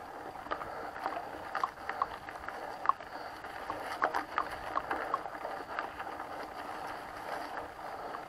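Mountain bike riding along a dirt forest trail: a steady rush of tyre and trail noise, with scattered clicks and rattles from the bike over bumps.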